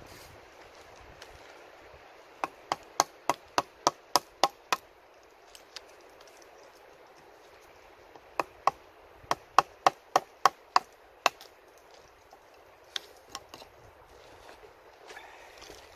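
Small hatchet chopping into a wooden pole: two quick runs of sharp strikes, about three to four a second, the first of about eight and the second of about ten, then a couple of lighter knocks near the end.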